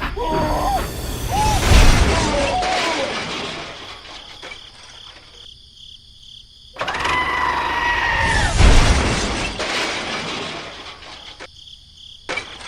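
Two loud crashes with shattering noise and a deep thump, each fading away over a few seconds. Short wavering pitched calls come in the first two seconds, and a steady pitched tone is held for about a second just before the second crash.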